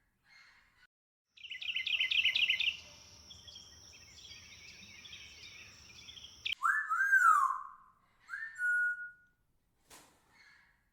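Bird calls: a quick run of rising chirps over a steady high buzz, then loud whistled notes that rise and fall, and a rising whistle held on one pitch near the end.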